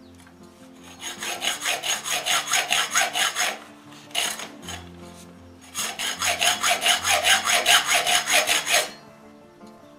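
Hacksaw blade, held by hand, sawing back and forth across a stripped screw head on an angle grinder's metal gear housing to cut its slot deeper. It comes in two runs of rapid strokes, about five a second, the first starting about a second in and the second from about six seconds until near the end.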